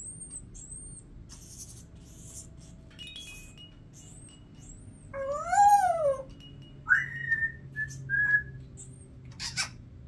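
Congo African grey parrot whistling and chirping: soft high chirps at first, then a loud whistle about five seconds in that rises and falls over about a second, followed by two shorter whistles and a sharp click near the end.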